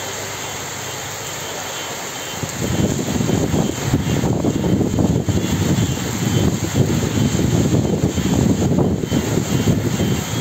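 Heavy rain pouring down, a steady hiss. About two and a half seconds in, a loud, uneven low rumble joins it and goes on.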